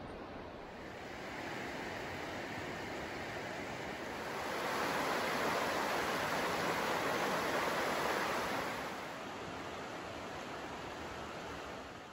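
A shallow, rocky creek rushing over stones in riffles: a steady wash of running water that grows louder for a few seconds in the middle.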